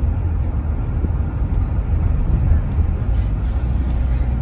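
Steady low rumble of road and tyre noise heard inside the cabin of a Toyota Prius driving at speed.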